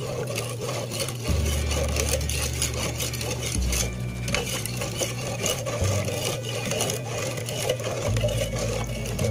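Metal spoon stirring liquid strawberry gulaman mix in a cooking pot, scraping and clinking repeatedly against the pot's sides and bottom.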